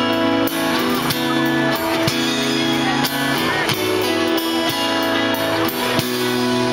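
Live pop band playing an instrumental passage of the song between sung lines: guitar chords over a steady drum beat.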